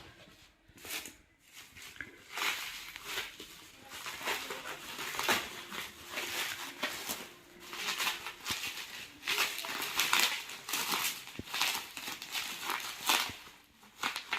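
Packaging being unwrapped by hand: irregular crinkling and rustling, starting about two seconds in and going on steadily.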